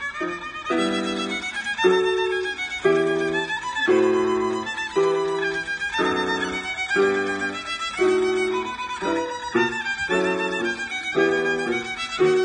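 A young child playing a small violin in short, separated notes in a lively rhythm, accompanied on a digital piano.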